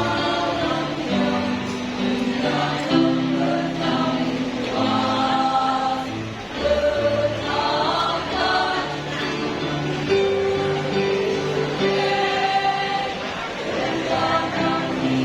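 A choir singing a hymn in several parts, moving through long held notes.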